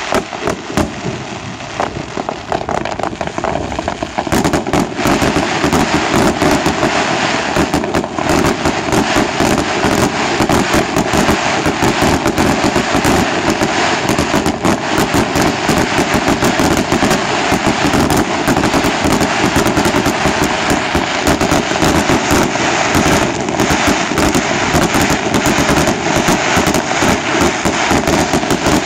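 Fireworks display: a rapid, unbroken run of bangs and crackles from bursting shells, which grows louder and denser about four seconds in.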